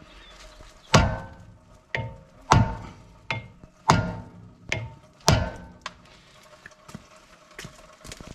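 About a dozen mallet blows on a rusted-on brake rotor, unevenly spaced, each leaving the iron disc ringing briefly. This is the rotor being knocked loose from the hub where corrosion holds it.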